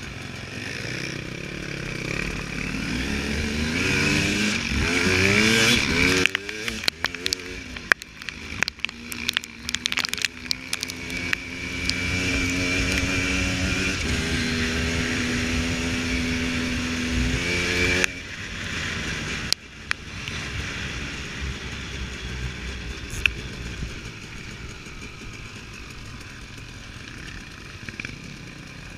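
Husaberg 300 two-stroke enduro motorcycle under way on a dirt track: the engine revs up, a run of sharp knocks follows, then it holds a steady high note before the throttle is shut about eighteen seconds in and it runs on at lower revs.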